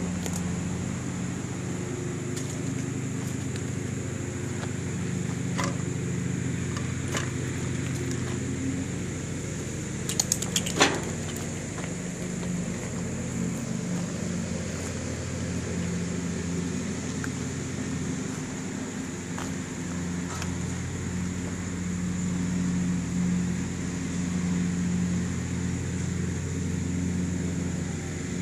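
1967 Ford Galaxie 500's engine idling steadily. A few sharp clicks, then a brief clatter of knocks about ten seconds in, the loudest sound in the stretch.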